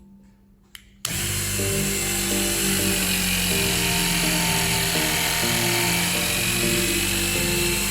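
Electric pump motor of a battery-operated hydraulic cable-cutting tool switching on about a second in and running steadily while it drives the cutter, with background music underneath.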